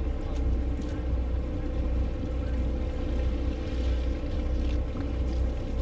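Sportfishing boat's engine idling at the dock: a steady low rumble with a faint, even hum above it.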